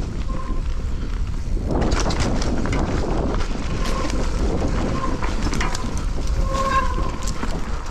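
Mountain bike riding over a rough dirt trail: tyre noise and wind rumble on the camera microphone, with frequent rattles and clacks from the bike over the ground. It gets busier about two seconds in, and a faint whirring tone comes and goes.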